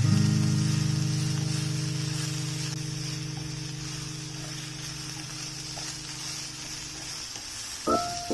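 Background music: one long held low chord that slowly fades, with new notes coming in near the end, over a steady high hiss.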